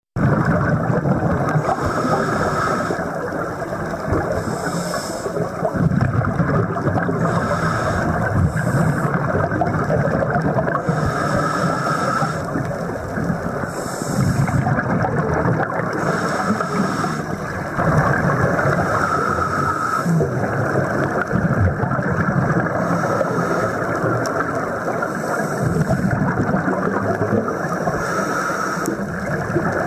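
Scuba diver's regulator breathing recorded underwater: a continuous muffled rush of water and bubbles, with a brighter breath sound returning every two to three seconds.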